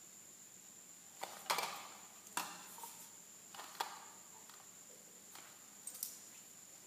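Handling noise: a few soft knocks and rustles as the cable modem and the handheld dosimeter on the cloth are moved. The loudest comes about a second and a half in, over a faint steady high whine.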